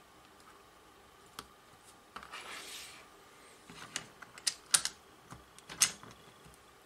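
Hands handling a USB cable and pushing its plug into a bare phone-charger circuit board's USB port: a single click and a short rustle, then a run of sharp clicks and taps, the two loudest about a second apart.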